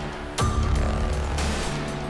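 Background electronic music with a heavy bass and a sharp downward-sweeping hit repeating about every two seconds, one about half a second in.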